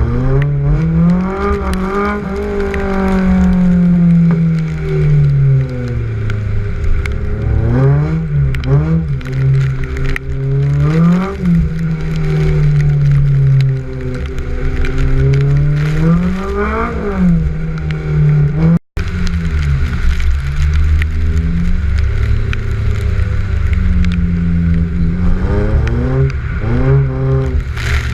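Honda S2000's inline-four engine revving up and down over and over while drifting, its pitch climbing and falling every few seconds, over a steady low rumble. The sound cuts out for an instant about two-thirds of the way in.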